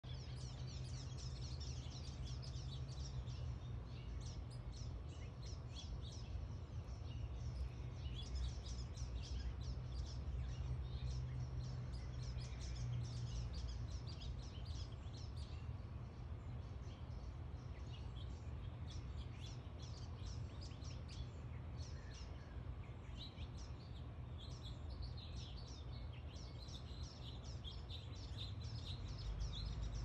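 Small backyard songbirds chirping and twittering, many short overlapping chirps with no break, over a steady low background rumble.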